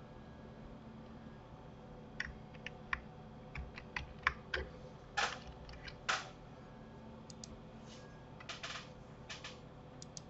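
Irregular clicks of a computer keyboard and mouse, about a dozen scattered taps, over a faint steady hum.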